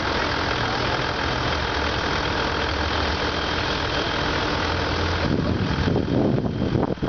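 A vehicle engine idling steadily. From about five seconds in, wind gusts buffet the microphone.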